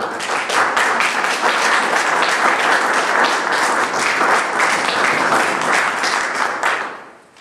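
Audience applause, many hands clapping steadily, dying away about seven seconds in.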